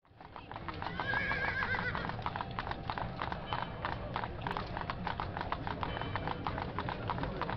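Sound-designed street ambience of many horses' hooves clip-clopping, fading in over the first second over a steady low rumble. A horse whinnies about a second in.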